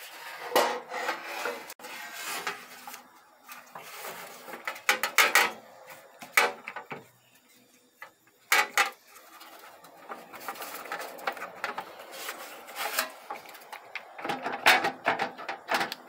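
A 6T40 transmission solenoid body and valve body handled on a metal drip tray: irregular plastic clicks, knocks and short scrapes as the parts are lifted, pressed and slid, with a quieter moment about halfway through.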